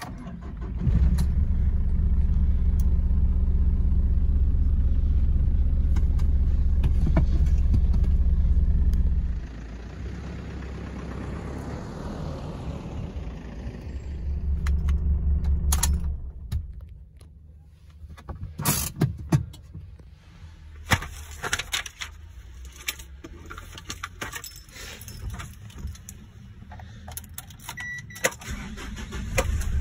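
Ford Ranger PJ ute engine started with the key, keys jangling in the ignition, then running steadily and loud. After about nine seconds it drops back and rises in pitch as the ute pulls away. The second half is a quieter stretch of driving with scattered sharp clicks and knocks.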